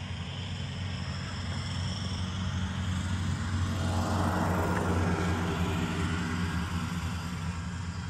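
1996 Ford B800 Blue Bird school bus engine idling steadily, a low even rumble that grows louder for a few seconds in the middle, when heard close to the tailpipe.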